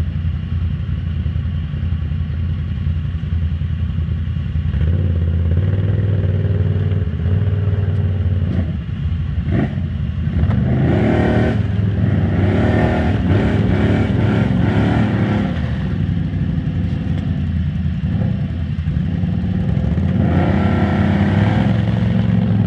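Can-Am Renegade ATV's V-twin engine running and revving hard in bursts, a long spell of revving in the middle and another near the end, as the quad sits stuck in deep mud with its tyres spinning and throwing mud.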